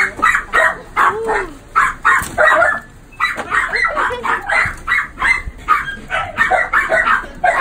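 Small dogs yapping in quick, high barks, about three a second, with a short rising-and-falling whine about a second in.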